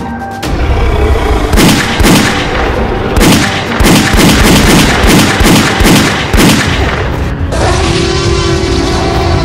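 Rifle gunfire sound effects: a rapid string of shots, about two or three a second, with music underneath, giving way to a steadier sound with held tones near the end.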